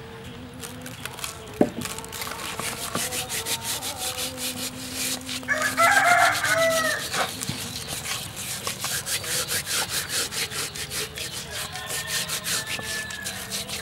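Hands scrubbing coarse salt over whole raw fish in a plastic basin to strip off the slime: a quick, steady run of rasping strokes. A rooster crows about six seconds in, the loudest sound, and a fainter fowl call comes near the end.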